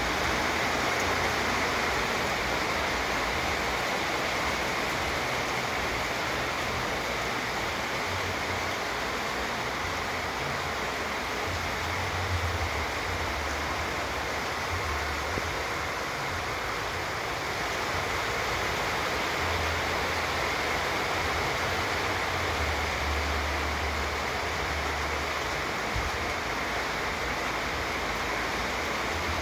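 Steady hiss of rain falling, with occasional low rumbles.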